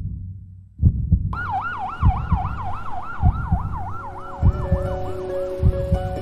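Ambulance siren warbling fast, rising and falling about four times a second, coming in about a second in and fading away, over a heartbeat sound effect of paired low thumps. Soft held music notes enter about four seconds in.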